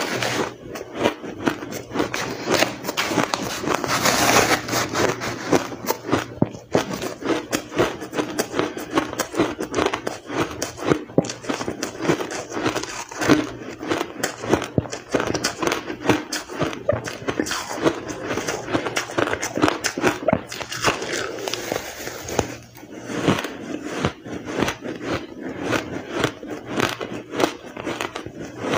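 Close-up chewing and crunching of powdery blender-crushed ice, a dense run of crisp crunches and crackles, loudest around four seconds in.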